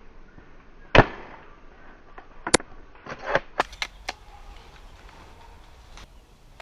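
Airsoft sniper rifle firing once about a second in, a sharp crack that dies away quickly. Then a run of short sharp clicks and snaps between about two and a half and four seconds in, and one more faint click near the end.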